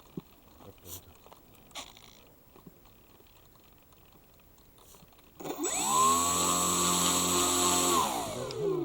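Electric motor and propeller of a Firstar 2000 RC motor glider spinning up sharply about five and a half seconds in, running at a steady speed with a high whine for about two and a half seconds, then winding down near the end, as in a throttle test before launch. Before it, a few faint clicks of handling.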